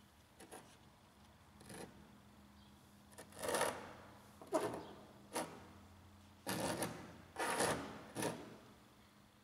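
Broken pieces of an old grinding-wheel stone being slid and set down on a wooden workbench by a gloved hand: a string of about eight short scrapes and knocks, the loudest ones a few seconds in.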